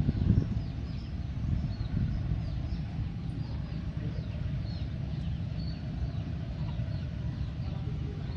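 Small birds chirping repeatedly in quick, short downward-sweeping notes over a steady low rumble.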